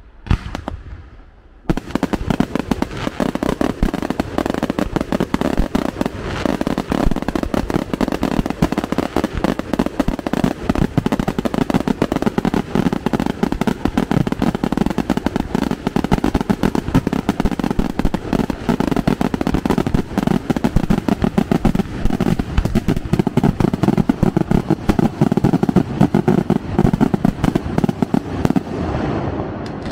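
Fireworks barrage: a single bang, then from about two seconds in a dense, unbroken run of rapid bangs and crackling that carries on almost to the end.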